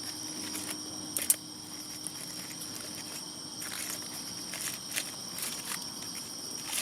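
Crickets or similar insects chirping steadily in a continuous high-pitched chorus, with a few scattered sharp clicks and rustles, the loudest a little over a second in.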